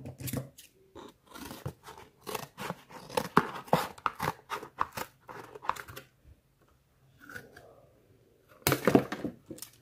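Scissors cutting through thin cardboard, a quick irregular run of short snips and crunches that pauses about six seconds in, with another burst of cuts near the end.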